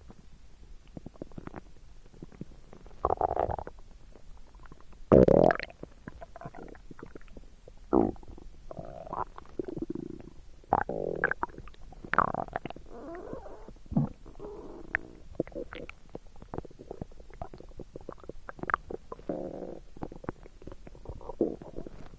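Human stomach gurgling and rumbling in short, irregular runs, the loudest about five seconds in, with small pops and clicks in between.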